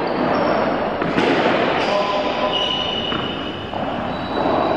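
Indoor ball game in a large echoing sports hall: a ball thudding on the hard court with a sharp knock about a second in, brief high squeaks a couple of seconds later, and players' voices.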